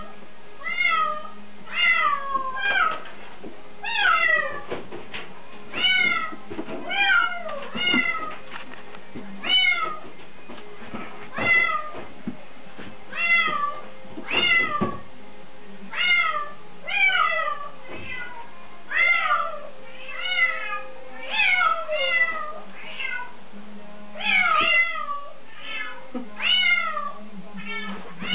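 Bengal kitten meowing over and over: short calls falling in pitch, coming in quick runs of two to four, with a faint steady low hum underneath.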